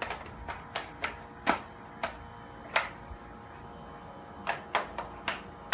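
Irregular sharp clicks and taps from hard objects being handled, about a dozen of them with uneven gaps. The loudest comes at the very end.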